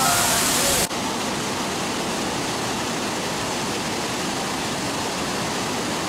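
Loud white-noise rush of a waterfall that cuts off abruptly about a second in. It is replaced by a steadier, slightly quieter rush of river rapids.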